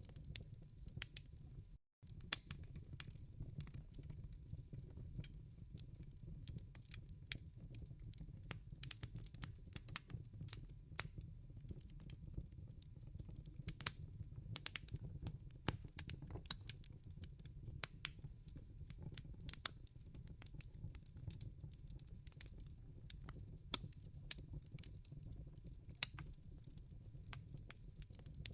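Wood fire crackling in a fireplace: irregular sharp pops and snaps over a steady low rumble of burning logs. The sound drops out completely for a moment about two seconds in.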